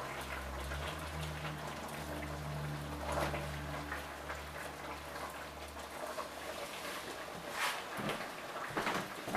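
Crackling sizzle from the stew pot as pieces of lamb rib go into the hot tomato base, with a low steady hum that stops about six seconds in and a few soft knocks of meat against the pot near the end.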